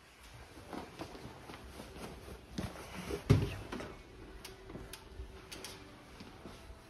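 Faint rustling and scattered small clicks of camera handling, with clothing rubbing against the microphone, and one sharp thump about three seconds in.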